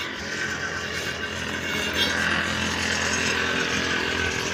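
A small motor running steadily, a continuous even drone.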